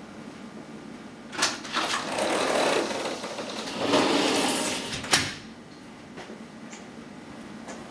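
A sliding window or door being opened: a click, then a rattling roll along its track in two pushes over about three seconds, ending in a sharp knock as it stops.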